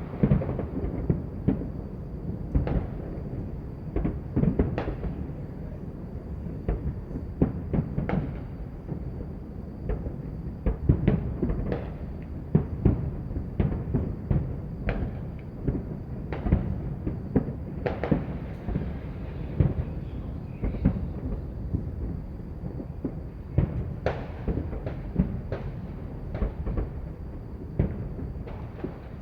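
Many fireworks and firecrackers going off at once: a dense, irregular crackle of pops and bangs over a continuous low rumble, with louder bangs every second or so.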